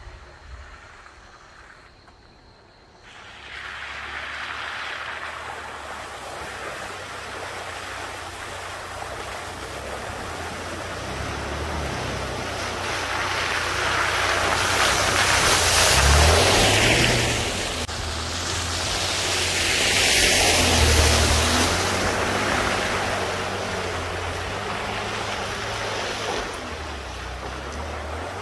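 Nissan pickup truck's engine revving up and down as it drives through muddy puddles, with water and mud splashing. After a quiet first few seconds the splashing builds to two loud surges, about halfway through and again a few seconds later.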